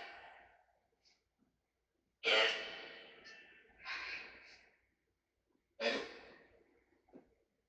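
Necrophonic ghost-box app playing from a phone: four short, echoing, voice-like fragments, each starting suddenly and fading away.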